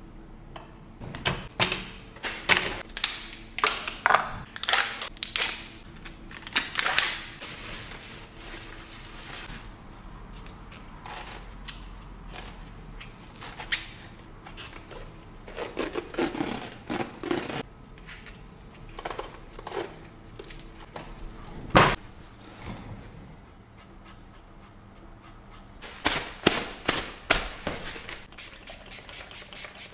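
Irregular clicks, taps and knocks of tattoo gear being handled, with a tattoo machine, ink caps and tools picked up and set down, and one sharp knock about three-quarters of the way in. A faint steady hum runs underneath.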